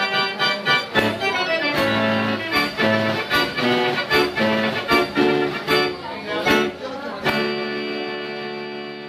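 Ruth Model 33 fair organ playing with a steady beat, then ending its tune on one long held chord from about seven seconds in that fades away.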